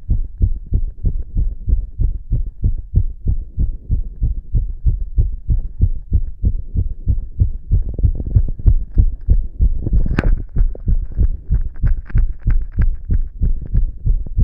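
A man's own heartbeat heard through a stethoscope pressed to his chest, beating fast, with quick low thumps in a steady rhythm: a racing heart after inhaling poppers. A single sharp click about ten seconds in.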